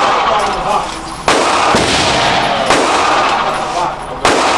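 Three gunshots about a second and a half apart, each with a sharp crack followed by a long echoing ring that dies away.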